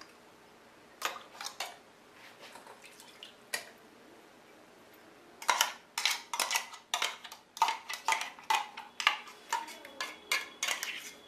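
Steel spoon and ladle clinking and scraping against a stainless steel mixer-grinder jar and a mesh strainer as spinach purée is scraped out and strained. A few light clinks come first, then from about halfway a quick run of metal scrapes and knocks, several a second.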